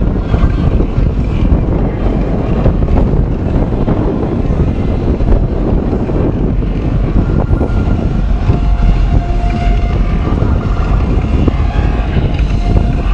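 Loud, steady low rumble of wind buffeting the microphone, mixed with boat engine noise. A faint steady tone comes in about halfway through.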